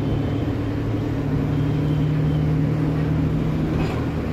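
City bus engine running as the bus drives along, heard from inside the cabin: a steady low drone that steps up slightly in pitch about a second in, over road noise.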